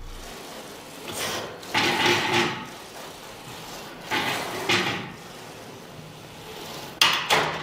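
A barbell bench-press set: four short, noisy bursts about two to three seconds apart, in time with the reps.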